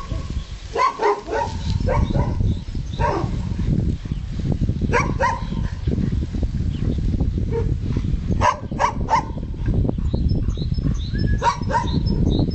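A dog barking repeatedly in short runs of two or three barks, over a steady low rumble.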